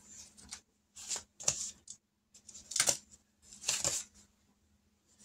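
Paper money bills rustling in short bursts, a handful of times, as they are handled and counted.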